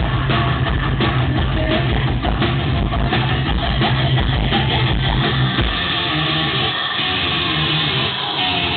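A rock band playing loud through a PA at a sound check, with distorted electric guitar and a drum kit. About six seconds in, the bass and drums drop away and ringing guitar carries on.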